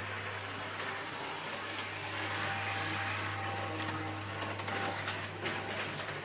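Electric locomotive under way: a steady low hum over running noise, with a faint whine that shows briefly in the middle and a few sharp clicks near the end.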